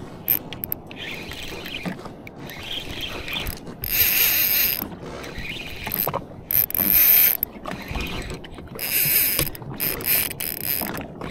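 Daiwa Saltiga 4000 XH spinning reel working under a hooked snapper: a whirring, ratcheting mechanism, reel being cranked and drag giving line, coming in several louder bursts.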